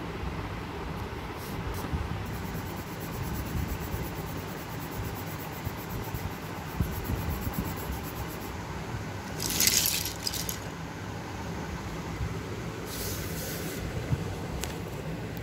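Steady low background hum, with two brief scratchy rustles of paper and coloured pencil being handled, the louder about two-thirds of the way through.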